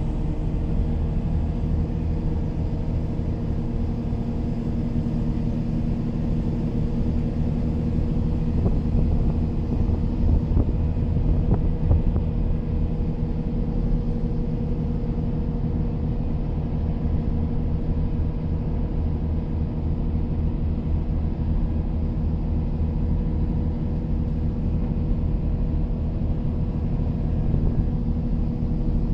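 Excavator's diesel engine running steadily, a low rumble with a constant hum, heard from inside the cab.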